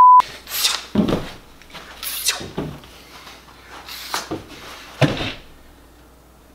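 A short, loud beep, then a man acting out Spider-Man moves: a string of about six sharp hissing swooshes, some with a thump, spread over some five seconds.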